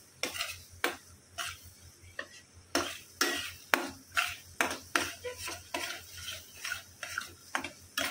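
Spatula scraping and knocking against a kadhai as thick onion-tomato masala paste is stirred and sautéed, in irregular strokes about two a second, with a faint sizzle from the frying paste.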